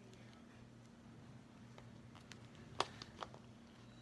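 Faint room tone with a low steady hum and a handful of small, sharp clicks and taps from handling, the sharpest near three seconds in.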